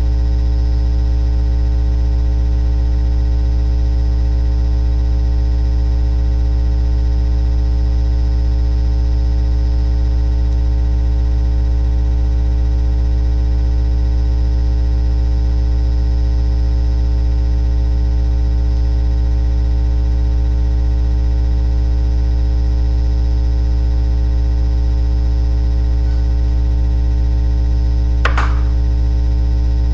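Loud, steady electrical hum with many overtones, unchanging throughout, with one brief click about 28 seconds in.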